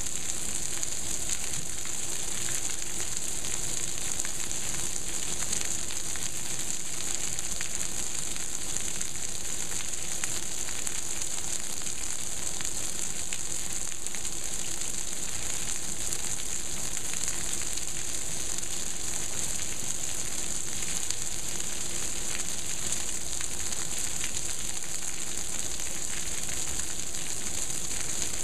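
Heavy monsoon rain pouring down in a steady, dense hiss.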